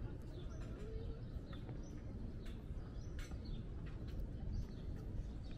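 Outdoor city-square ambience: a steady low rumble with scattered light clicks and brief chirps of small birds now and then.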